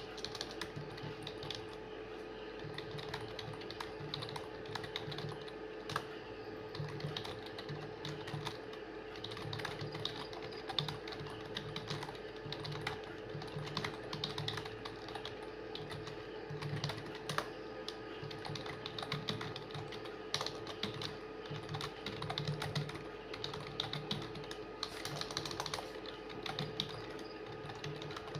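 Rapid, continuous typing on a computer keyboard: a fast, unbroken stream of key clicks, as in a speed-typing test.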